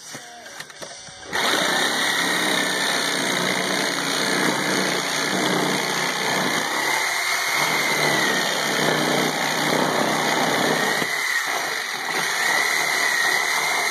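Corded reciprocating saw cutting through a wooden rafter board to finish a bevel cut. It starts about a second in and runs steadily through the wood with a high, wavering whine.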